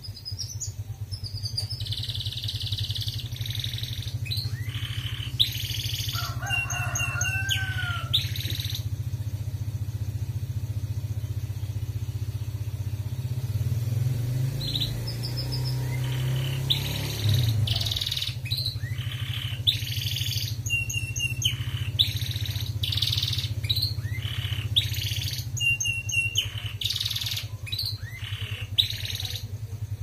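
Domestic canary singing in bright chirping and trilling phrases with a few whistled glides, pausing for several seconds in the middle before singing again. A steady low motor drone runs underneath.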